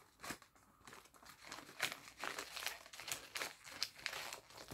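Wrapping paper crinkling and rustling in the hands while it is folded around a small box: an irregular run of short, crackly rustles.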